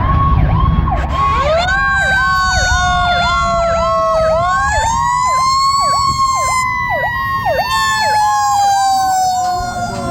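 Fire engine sirens: a rapid electronic yelp warbling about three times a second, joined about a second in by a wailing siren that winds up, slowly falls, winds up again near the middle and then slowly dies away. A low engine rumble runs underneath.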